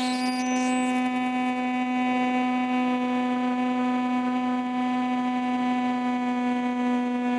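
Radio-control plane's motor and propeller running at a steady pitch, heard from a camera mounted on the plane: an even hum with many overtones.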